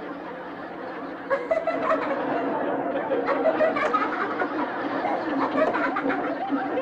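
Audience laughter from many people, swelling about a second in and carrying on.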